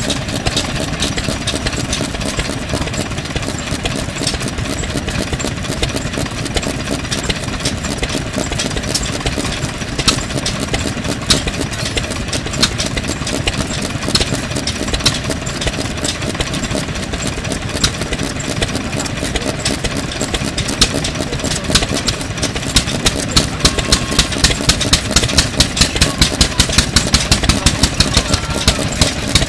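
A 1954 AKITU Type 2MB single-cylinder oil and diesel-fuel stationary engine running steadily. Its rhythmic beat grows sharper and louder in the last several seconds, at roughly two to three strong beats a second.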